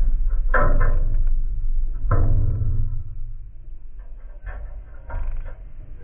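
A jackdaw's beak knocking on a metal mesh feeder as it pecks at mealworms. Each knock sets the dish ringing briefly. The loudest knocks come about half a second in and about two seconds in, with fainter ones later, over a steady low rumble.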